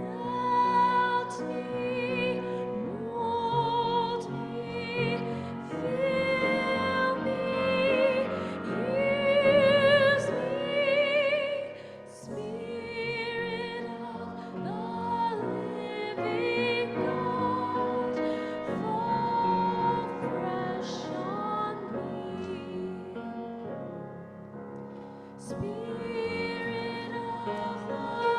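A hymn sung in church, voices with vibrato in long held phrases over a sustained instrumental accompaniment, with a short breath between phrases about twelve seconds in.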